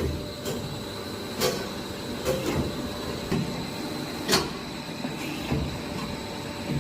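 Extrusion blow molding machine for 1-litre HDPE bottles running: a steady machine hum with a constant high whine, broken by sharp clacks and knocks about once a second, the loudest about four seconds in.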